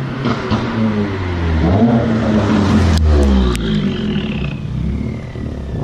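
Car engine accelerating, its pitch climbing. About three seconds in a sharp click comes and the pitch drops, then climbs again, while a high whine falls slowly in pitch.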